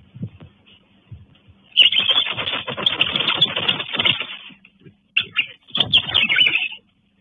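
White-nosed coatis rustling and scratching among dry leaf litter and the hanging banana bunch: a loud crackling rustle full of quick clicks starting about two seconds in and lasting a couple of seconds, then two shorter bursts near the end.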